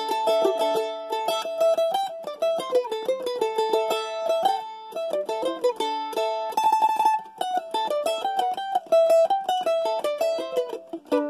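Acoustic A-style mandolin played solo: a picked single-note melody, with a short burst of fast tremolo picking on one note a little past halfway.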